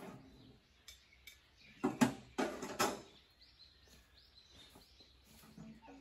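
Faint bird chirps, broken by a short run of sharp clattering knocks of unknown source about two to three seconds in, the loudest sounds here.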